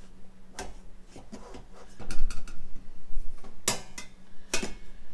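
Stainless steel camp cookware being nested together: bowls knocking and scraping into a pot, then two sharp metal clinks about a second apart near the end that ring briefly.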